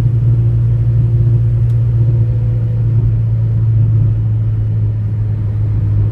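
Renault 12 cruising at a steady speed, heard from inside the cabin: a steady low engine and drivetrain drone with road noise, and wind through an open side window.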